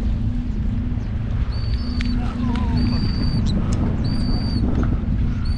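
Wind buffeting the microphone over a boat's steady engine hum on open water. Four short, flat, high-pitched squeals sound about a second apart.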